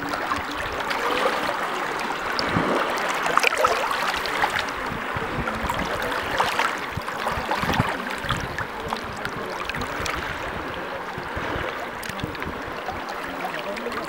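Flowing river water: a steady rushing hiss, with a few short splashes and knocks here and there.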